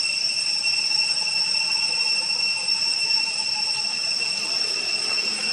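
Steady, high-pitched insect drone, typical of a cicada chorus, holding one even pitch.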